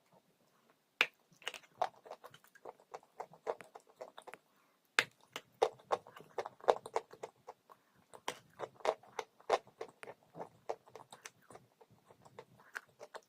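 Crunchy chalk being bitten and chewed. There is a sharp snapping bite about a second in and another about five seconds in, each followed by irregular crunching chews.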